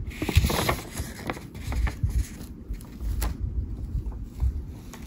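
Iron-on transfer's carrier sheet being peeled back off a fabric garment: an uneven rustle and crackle of the sheet lifting, with scattered small clicks and low handling bumps.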